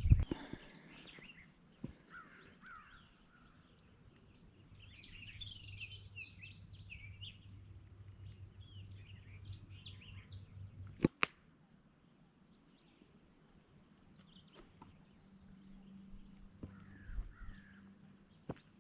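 Small birds chirping and singing on and off, fairly faint, with a sharp click about eleven seconds in and another near the end.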